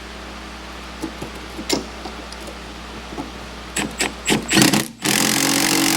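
A few sharp metallic clanks and knocks of parts and tools being handled. Then, about five seconds in, a loud cordless impact wrench starts running steadily, tightening an exhaust fastener.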